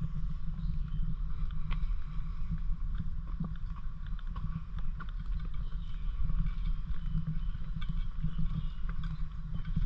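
Wind buffeting a GoPro action camera's microphone as a steady, fluttering low rumble, with scattered small clicks of the camera being handled.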